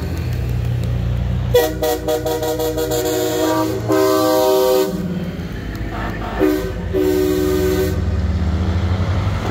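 Semi-truck air horns blowing as diesel trucks roll past, over a steady low engine rumble. A quick string of toots comes about a second and a half in, then longer chord blasts around four seconds and again near seven seconds.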